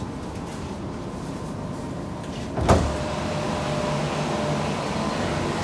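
Sliding doors shut with a single sharp thump about two and a half seconds in, followed by a steady mechanical hum with a faint constant tone.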